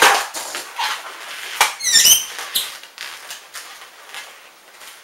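Latex modelling balloon squeaking and rubbing under the fingers as it is twisted and knotted, with a cluster of high, wavering squeaks about two seconds in.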